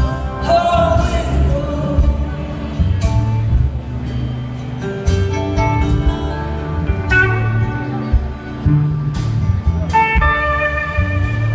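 Live band playing a slow blues instrumental break: an electric slide guitar plays held, gliding lead notes over strummed acoustic guitar, bass and drums.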